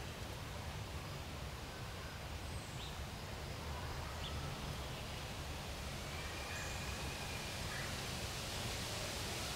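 Woodland ambience: a steady hiss over a fluctuating low rumble, with a few faint, short bird calls, one drawn out a little longer about seven seconds in.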